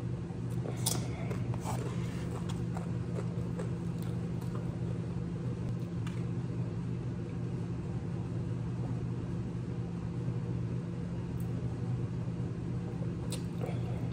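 A steady low hum in the room, with a few faint short clicks now and then.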